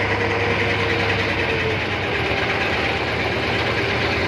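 A small boat engine running steadily at an even speed, a constant drone.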